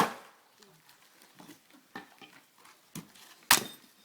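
Axe striking a firewood log: a sharp chop right at the start and another about three and a half seconds in, with a lighter knock just before it. The blows are not splitting the log.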